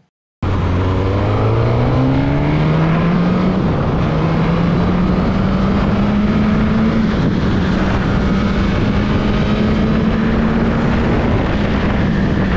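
A Suzuki GSX-S1000's 999 cc four-cylinder engine heard from the rider's seat while riding. It cuts in about half a second in, rises in pitch as the bike accelerates, then holds a fairly steady note while cruising, over a constant rush of wind and road noise.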